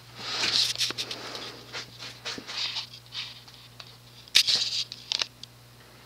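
Short bursts of rustling and a few sharp clicks, the loudest about four and a half seconds in, over a faint steady low hum, as the ceiling fan is switched on at low speed.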